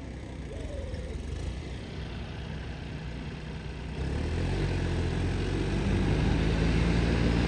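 Tractor diesel engine running steadily, getting louder about halfway through.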